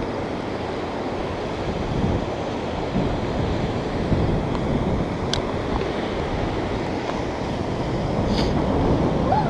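Steady rush of water pouring over a dam, mixed with wind buffeting the microphone.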